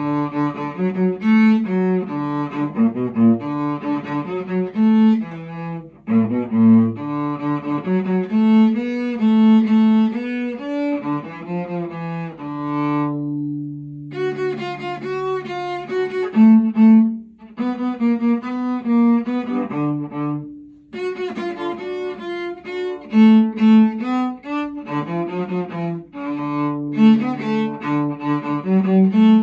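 Solo cello played with the bow: a melodic passage of changing notes in short phrases with brief breaks between them, and one long held low note near the middle.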